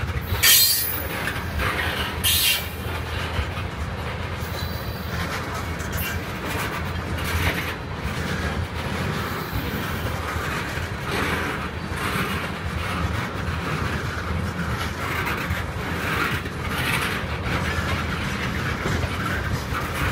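Tank cars of a freight train rolling past at speed: a steady rumble of steel wheels on rail with clacking over the rail joints. Two sharp bangs come about half a second and two and a half seconds in.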